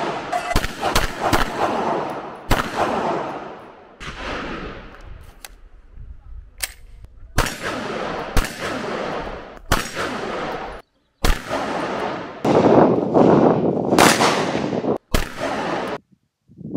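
Shots from a black AR-style carbine, fired one at a time in an uneven string, each followed by a long echoing tail.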